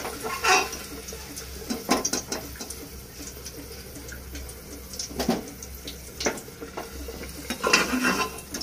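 Steel slotted spoon clinking and scraping against an aluminium pressure cooker as fried potato pieces are lifted out of the oil. A few sharp knocks come a second or more apart, the loudest near the end.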